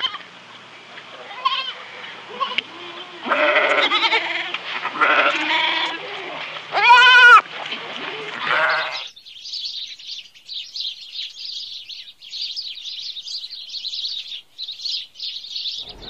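Young goat kid bleating several times, the loudest a single pitched bleat about seven seconds in. From about nine seconds in, this gives way to steady high-pitched rapid chirping.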